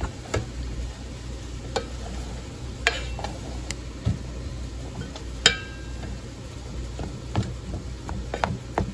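Plastic rice paddle fluffing cooked rice in an Aroma rice cooker's inner pot: soft stirring with scattered light clicks and taps as the paddle knocks the pot, over a steady low hum.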